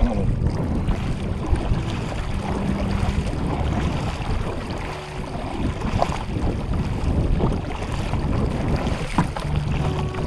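Water splashing and lapping against the hull of a Feelfree Lure 13.5 kayak in a strong current, with wind buffeting the microphone and a couple of light knocks.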